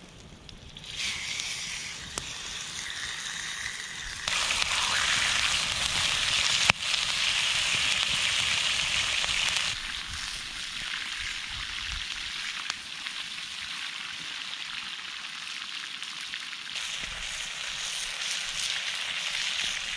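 Steak sizzling in a frying pan over a campfire. The sizzle comes in about a second in and is loudest through the middle, with one sharp click about seven seconds in, then carries on a little softer.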